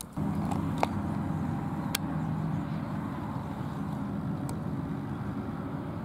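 Steady low engine drone that starts just after the beginning and holds level, with a few short sharp clicks on top.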